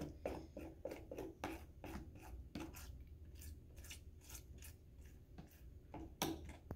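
Metal spoon stirring pink glue slime in a clear plastic bowl, making quick irregular clicks and scrapes against the bowl, a few each second, with a louder knock about six seconds in. The glue and liquid starch are just coming together into slime.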